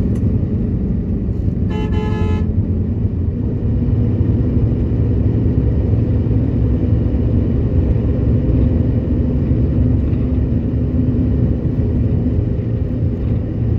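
Air-conditioned coach bus running on the road with a steady low engine and road rumble. A vehicle horn sounds once, briefly, about two seconds in.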